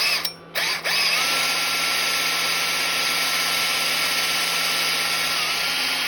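Power drill drilling a small hole into a yew birdhouse: two short starts in the first second, then a steady whine that holds one pitch for about five seconds, dipping slightly near the end.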